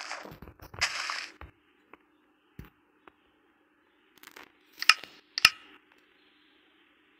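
Hand work on small wooden pieces: two short scraping strokes at the start, a few light clicks, then two sharp snaps or cracks about five seconds in, half a second apart, over a faint steady hum.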